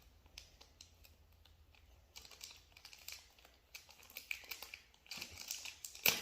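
Toy packaging being handled and opened: short crinkles, scratches and clicks that start about two seconds in, with one sharper click near the end.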